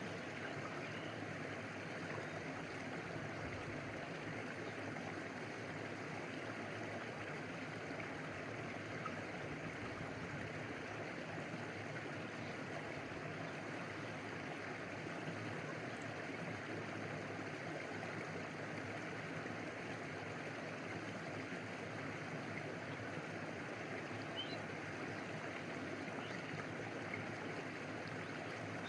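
A stream's water flowing and lapping in a steady, even rush. A few faint, short high chirps come through late on.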